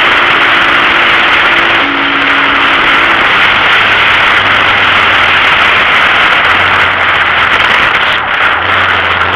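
A vehicle driving in traffic, with a steady, loud noise of engine and rushing air. In the first three seconds a low tone steps between two pitches, and a low hum comes in about halfway through.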